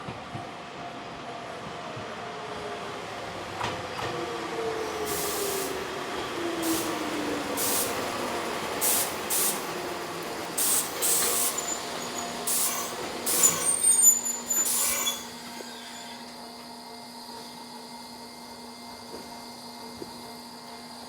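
Hokuriku Railroad 7000 series electric train slowing to a stop, its motor whine falling in pitch. Then comes a series of short, sharp air-brake hisses, loudest near the middle. After them a steady low hum runs on while the train stands.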